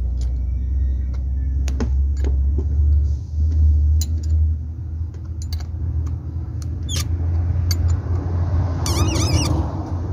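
Spanner tightening the nut of a brass earth clamp on a copper earth rod, giving scattered sharp metal clicks, over a steady low rumble. A short run of quick chirps comes near the end.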